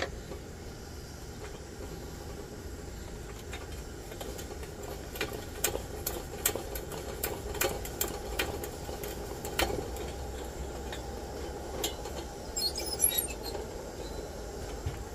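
Steady hiss of pressurised burners: a British No. 6 military stove burning with a blue flame next to a lit Coleman 200A lantern. Scattered light clicks and taps from hands handling the lantern, busiest midway and in a quick cluster near the end.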